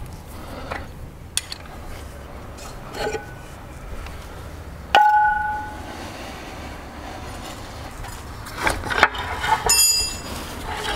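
Metal clinks and knocks of tools and an outboard gearbox (lower unit) as its last bolt comes out and it is worked loose from the leg. About halfway, one sharp metallic clank rings on for about a second, and a short higher metallic ring comes near the end among more clicks.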